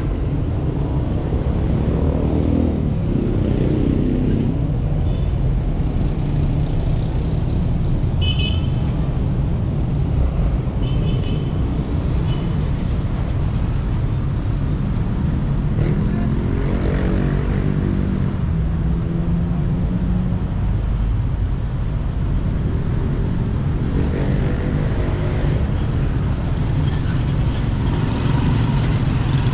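Street traffic: a steady low rumble with vehicles passing by three times, each engine sound swelling and fading, plus a few short high chirps about a third of the way in.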